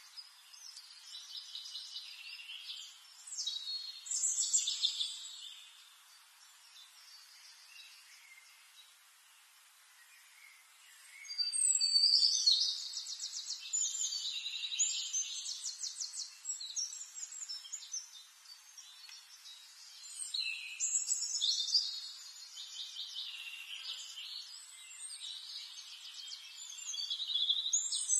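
Birds chirping and trilling in high-pitched bursts of a few seconds each, with quieter gaps between them.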